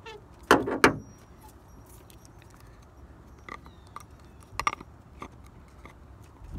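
Hard plastic marker buoys and their metal weight knocking and clicking together as they are handled and the weight is seated between the floats. Two loud knocks come about half a second in, then a few lighter clicks.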